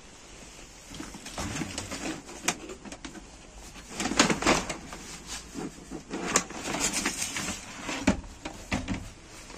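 A plastic carrier bag rustling and crinkling while a small Samsung laser printer is lifted out of it and turned over in the hands, its plastic casing knocking and clunking. The noises come in an irregular run, busiest about four seconds in.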